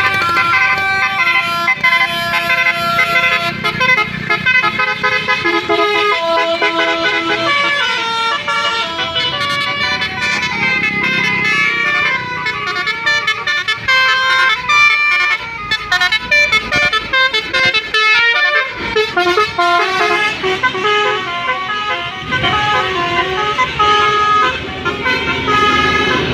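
Basuri telolet bus horns playing quick melodic tunes, note after note stepping up and down in pitch, over the low running of the coaches' engines.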